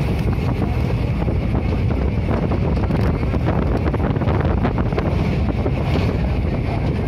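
Wind buffeting a phone's microphone at an open window of a moving passenger train, over the train's steady running rumble.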